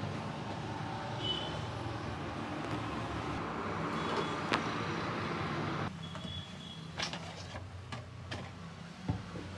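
Roadside traffic noise: vehicle engines running and passing in a steady din that drops abruptly about six seconds in, with a few sharp clicks or taps, most of them in the quieter second part.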